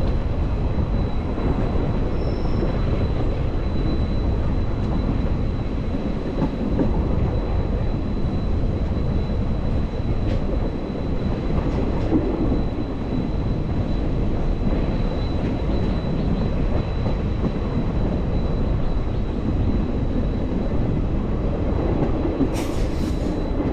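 Passenger train running along the track, heard from a coach window: a steady rumble of wheels on the rails.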